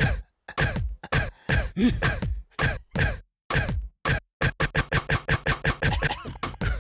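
Coughs set to a rhythm as a beat: short separate coughs about two a second, speeding up to about four or five a second after about four seconds.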